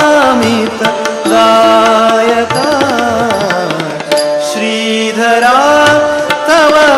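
Male voice singing an Indian classical melody, holding long notes and bending into quick wavering ornaments, accompanied by harmonium and tabla strokes.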